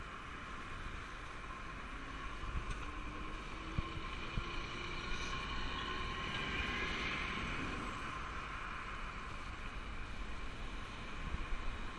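Road traffic going round a roundabout: a steady rush of passing cars, swelling to its loudest about six to eight seconds in as a curtain-sided articulated lorry drives past.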